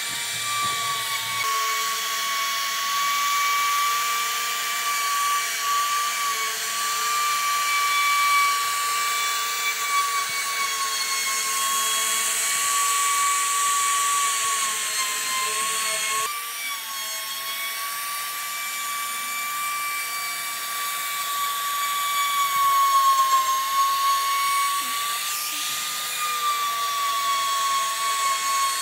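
Electric power tool running continuously at high speed with a steady high-pitched whine that wavers slightly in pitch, over a hiss; the sound changes abruptly about sixteen seconds in.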